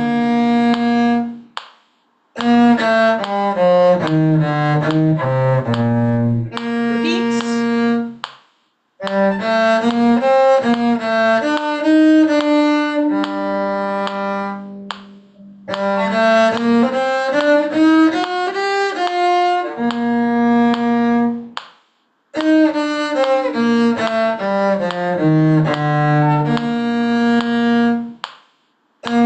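Cello playing a quick folk-style tune in bowed, separate notes, in phrases of several seconds each broken by short pauses.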